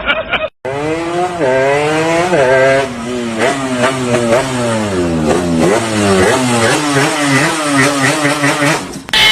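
An engine-like sound, like a motorcycle, revving up and down in quick repeated waves. It starts about half a second in and cuts off near the end.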